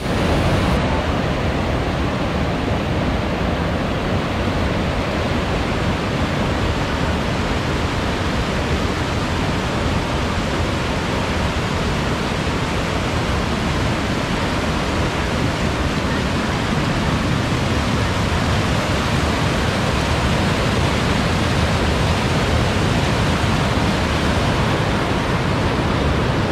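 River rapids rushing over and between large boulders: a steady, loud whitewater rush.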